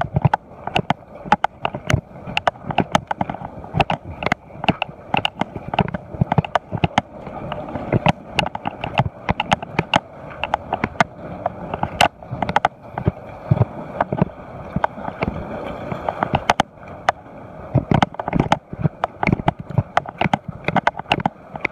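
Irregular knocks, clicks and scrapes, several a second, of footsteps and gear jostling while clambering over wet coral rocks, over the steady wash of small waves.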